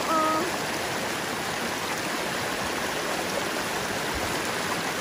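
River water flowing, a steady even sound with no change in level.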